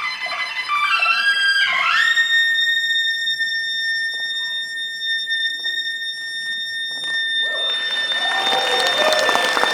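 Suona playing quick melodic notes, then sliding up into one long, piercing held high note that sustains for more than seven seconds. A dense wash of noise rises under the note near the end.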